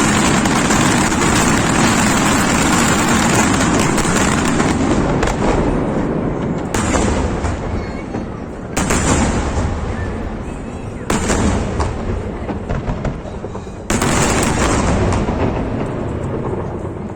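Fireworks display: a dense, continuous barrage of rapid explosions, which thins out after about five seconds into four separate big bangs a few seconds apart, each one echoing away.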